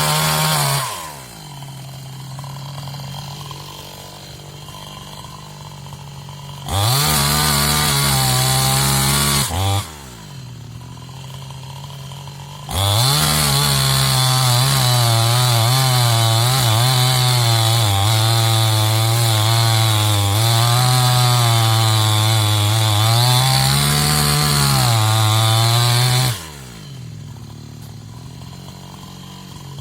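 New West 628 two-stroke chainsaw alternating between idle and full throttle: a short rev about a quarter of the way in, then a long run at full throttle for roughly thirteen seconds with the pitch wavering as the chain cuts into wood, before dropping back to idle near the end.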